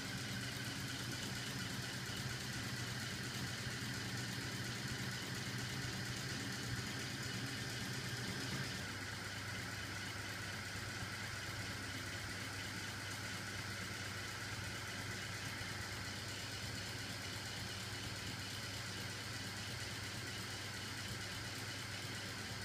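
Small battery-powered electric motor driving a crankshaft and spinning rubber-tyred flywheels, a steady mechanical hum. About nine seconds in the hum becomes a little quieter and less deep.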